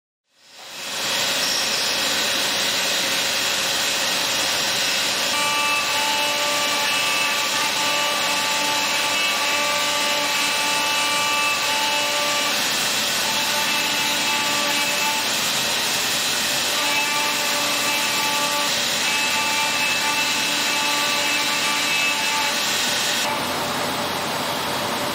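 CNC machine cutting: a steady loud hiss carrying several steady whining tones that come and go, fading in over the first second.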